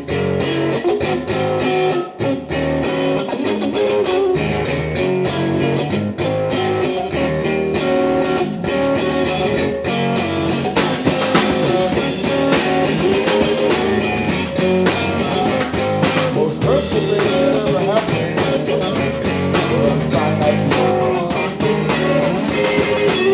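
Live blues-rock band: electric guitar playing a blues groove, with the drum kit and cymbals coming in about a quarter of the way through.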